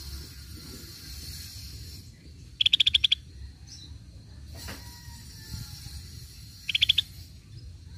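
Scaly-breasted bulbul giving two short, loud rattling trills of rapid clicking notes, one about three seconds in lasting half a second and a shorter one near the end.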